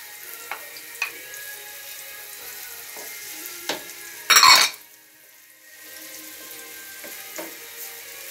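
Vegetable strips frying in hot olive oil in a large wide pan, a steady sizzle with a few taps of a wooden spoon against the pan. Eggplant strips are tipped in from a glass bowl, and a loud burst of noise comes about four seconds in.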